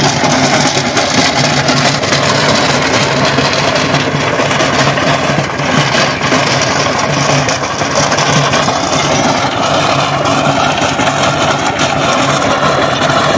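Mahindra Yuvraj mini tractor's single-cylinder diesel engine running steadily under load, driving a rear rotavator that churns through dry soil.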